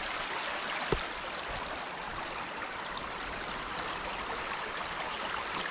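Shallow rocky creek running steadily over stones, with one sharp knock about a second in.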